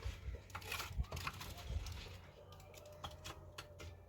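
Irregular light clicks and taps, several a second.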